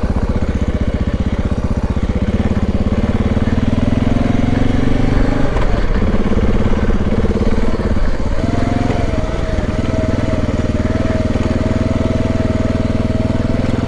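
Dual-sport motorcycle engine running steadily while riding, the engine note dipping briefly twice, about six and eight seconds in.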